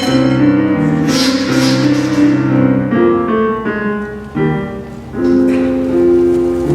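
Piano accompaniment playing a lively tune of short repeated chords, with a brief splash of hissing, cymbal-like noise about a second in.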